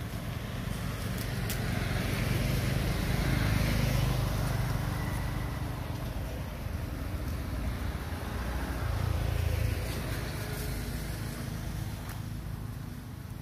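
Low rumble of passing road traffic, swelling and fading twice: about three seconds in and again around nine seconds.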